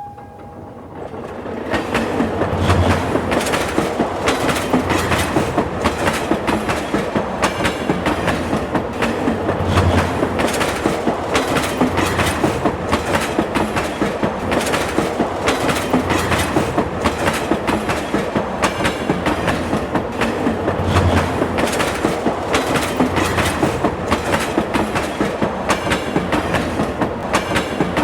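A train running past, its wheels clacking in a fast, steady rhythm over the rail joints. The sound builds up over the first two seconds, then holds loud.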